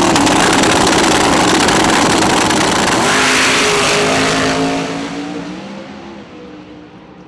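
Dodge Challenger Hellcat drag car with a twin-turbocharged 528 cubic inch billet Hemi V8, launching at full throttle down the quarter mile. Its engine note climbs from about three seconds in, then fades steadily as the car pulls away down the track.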